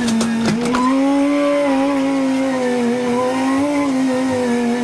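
Engine running at a steady speed with a whining tone that drifts only slightly in pitch, and a few sharp knocks or rattles in the first second.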